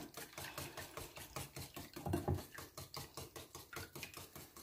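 Hand whisk beating a thin egg-and-milk mixture in a ceramic bowl, ticking against the bowl in a quick, even rhythm of about six strokes a second.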